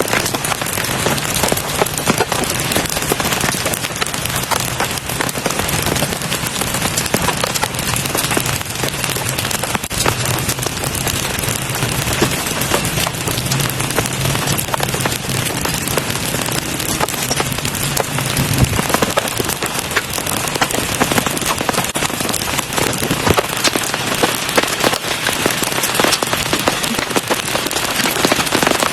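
Heavy rain falling steadily, a dense hiss made of countless individual drop impacts. A low steady rumble sits underneath until about two-thirds of the way through, then stops.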